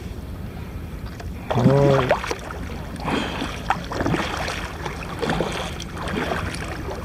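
Water splashing and dripping around a sea kayak's paddle and hull in irregular bursts, with a short wordless voice sound about one and a half seconds in.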